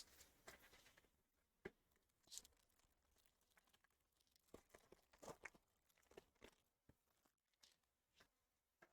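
Near silence, with faint scattered rustles and clicks of trading cards and pack wrappers being handled.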